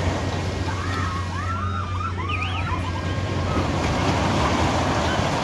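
Ring of Fire fairground ride running, its train circling the vertical loop over a steady low hum. About a second and a half in comes a brief cluster of high squeals that rise and fall.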